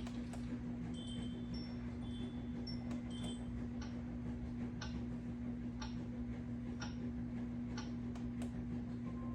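Geuuap sunrise alarm clock sound machine playing one of its built-in sounds through its speaker: short chime-like tones in the first few seconds, then ticks about once a second, over a steady low hum.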